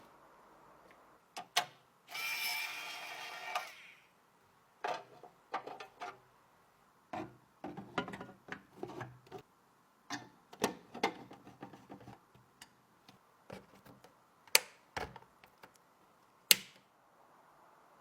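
Clicks, taps and knocks of PC parts and screws being handled and fitted, with a short motor whirr of a power tool early on and two sharper clicks near the end.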